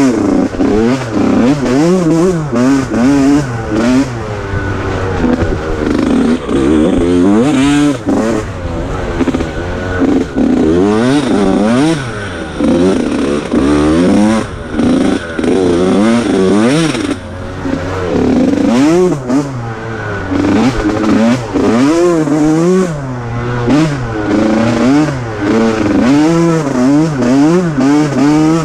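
Off-road vehicle's engine revving up and falling back again and again, about every second or two, with rattles and knocks from the machine over rough ground.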